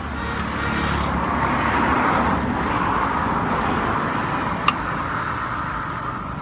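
A road vehicle passing close by: its engine and tyre noise swells to a peak and slowly fades. A single sharp click comes about two-thirds of the way through.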